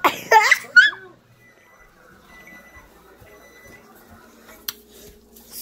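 A high-pitched vocal squeal in the first second, then a microwave oven beeping several short beeps, and a sharp click near the end.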